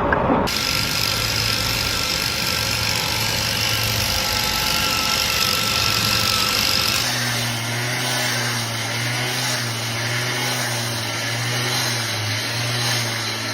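A machine's engine running steadily, its tone changing abruptly about half a second in and again about seven seconds in, when a steady low hum takes over.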